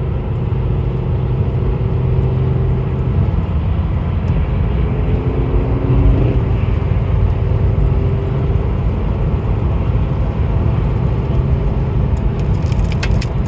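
Car driving at steady highway speed: continuous engine and road rumble heard from inside the cabin. A few light clicks come near the end.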